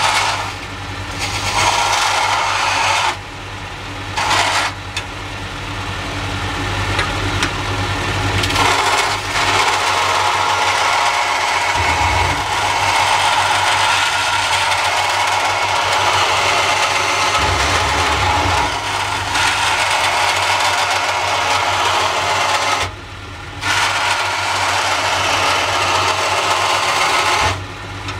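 Makita portable band saw running and cutting a knife blade profile out of steel stock, the blade rasping steadily through the metal over the motor's hum. The cutting noise drops away briefly a few times.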